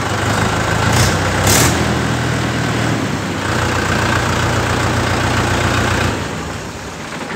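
Mahindra 585 DI tractor's four-cylinder diesel engine running steadily, with two brief louder bursts about a second in. The sound drops away about six seconds in. The seller presents it as a healthy engine with a great sound, on a tractor of about 1,000 hours.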